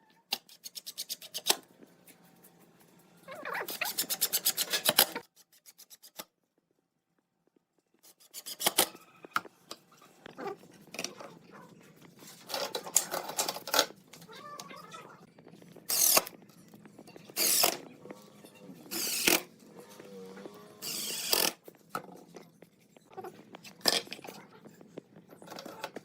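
Bursts of hand-tool work on wood: scraping and rasping strokes with rapid ticking, broken by a brief silence about six seconds in.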